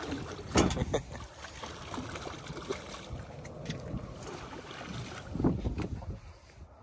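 Small sturgeon thrashing and splashing at the water's surface beside the boat as it is grabbed and lifted out by hand, over steady wind noise on the microphone. The sharpest, loudest splash comes about half a second in, and another about five and a half seconds in.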